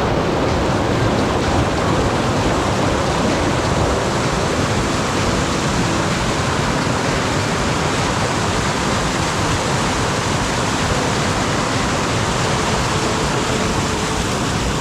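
Small waterfall and stream rushing steadily, running high after rain.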